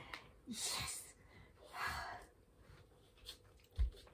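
Two heavy breaths out from a person who has just come down from a headstand, the first about half a second in and the second about two seconds in. A low thump comes near the end as she gets to her feet.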